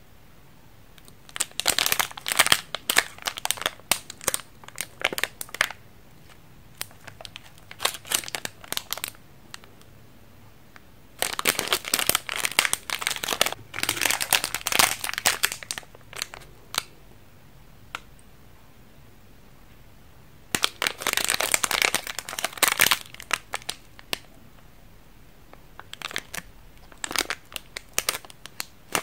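Plastic candy wrappers crinkling as they are handled, in five bursts of a few seconds each with short quiet pauses between.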